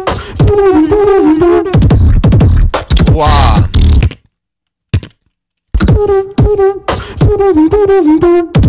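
Beatboxing into a microphone: kick and snare sounds under a melodic pitched vocal line, with a rising vocal glide about three seconds in. The routine stops dead for about a second and a half, apart from one short click, then starts again with the same melodic pattern.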